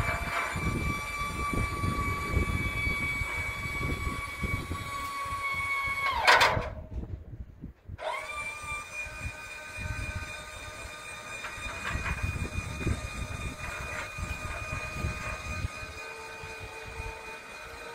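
A John Deere 6600 self-propelled sprayer's engine runs with a steady high whine over wind rumble on the microphone. About six seconds in, the whine dips in pitch and the sound cuts out. It comes back about two seconds later, the whine rising back to its steady pitch.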